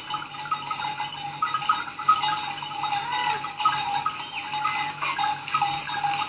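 Several goats bleating, with many short calls overlapping.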